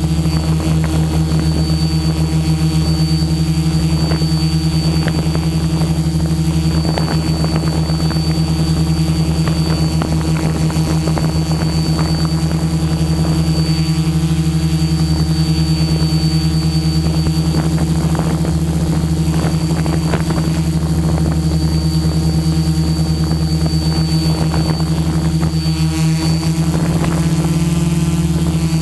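HMF U580 quadcopter's Gartt 3508 brushless motors and propellers running steadily in flight, as heard by the camera mounted on the quad: a loud, even hum with a thin high whine above it.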